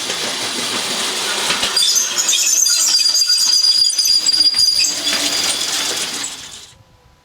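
Steel wheels of a 5-inch-gauge garden railway vehicle rolling through a tight 2.5 m curve on unlubricated rail, with a harsh metallic rolling noise and a steady high-pitched curve squeal from about two seconds in until about five. The noise fades away shortly before the end.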